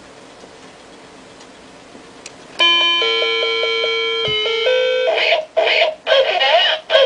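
Novelty pig alarm clock's alarm going off. After a quiet start, a loud electronic beeping melody begins abruptly about two and a half seconds in. About five seconds in it switches to a warbling, wobbling electronic sound with brief gaps.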